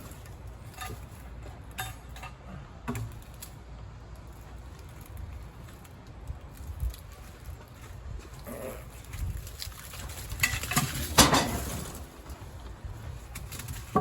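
Scattered knocks and metal clinks of a heavy log being worked by hand with a steel cant hook, with a louder cluster of knocks about eleven seconds in.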